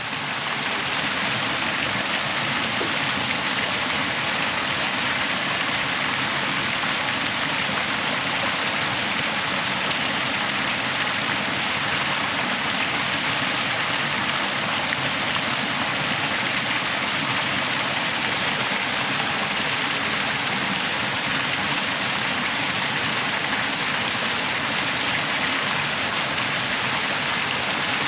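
Small waterfall, water falling and splashing in a steady, even rush.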